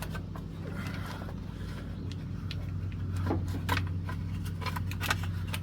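A few scattered light metal clicks and knocks as a valve cover is worked loose and pulled off a V8 engine, over a steady low hum.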